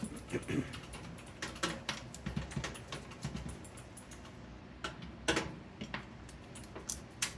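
Scattered light clicks and taps of a computer case and its side panel being handled, with a sharper knock about five seconds in and another near the end.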